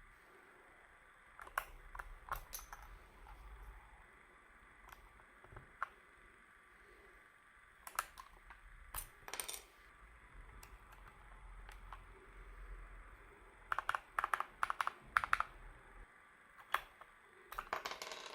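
Light plastic clicks and clatter of keyboard keycaps being handled and pressed into place, with a quick run of clicks about two-thirds of the way in and again near the end.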